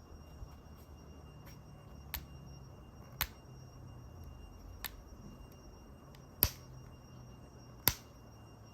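About six sharp clicks and taps of hard objects being handled, over a faint steady hum; the two loudest come near the end.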